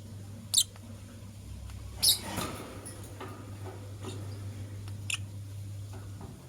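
Lovebirds giving short, sharp, high chirps, three louder ones about half a second, two seconds and five seconds in, with fainter ticks between. A steady low hum runs underneath and stops near the end.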